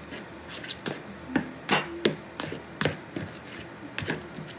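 A metal spoon stirring chopped cheese in a ceramic mixing bowl, clinking and scraping against the bowl in irregular sharp knocks.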